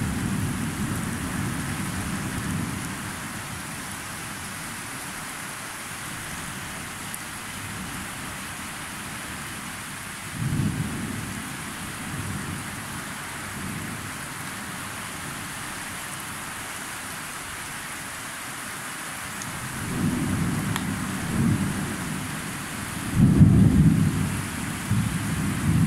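Thunder rumbling over a steady hiss of rain. A rumble dies away in the first few seconds and another comes about ten seconds in. From about twenty seconds a longer, louder run of thunder builds, loudest near the end.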